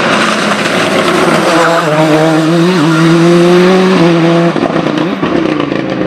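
Ford Escort Cosworth race car's stroked Cosworth YB turbo four-cylinder at full throttle. It accelerates hard, its note climbing through a gear from about a second and a half in, and breaks for an upshift about four seconds in.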